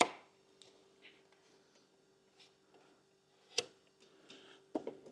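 Plastic filler spreader working body filler over pinholes on a Land Rover body panel: light scrapes and small ticks, with two sharp taps, one at the start and another about three and a half seconds in. A faint steady hum runs underneath.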